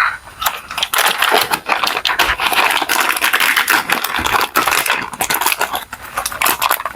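Plastic mochi packaging crinkling and crackling in quick irregular bursts as it is pulled and worked at, a package that is hard to open.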